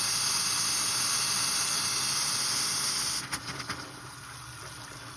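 Hot water faucet hissing loudly as air is bled out of a refilled water heater tank and its lines. About three seconds in the hiss cuts off with a few sputters and gives way to a quieter steady flow, the sign that the air is out and water is running through.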